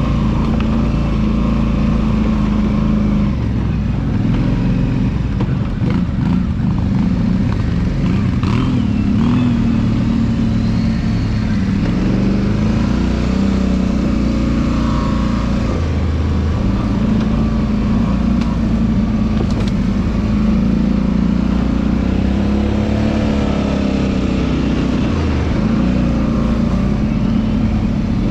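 ATV engine running under way, its pitch rising and falling as the throttle is worked, with a rushing noise of riding throughout.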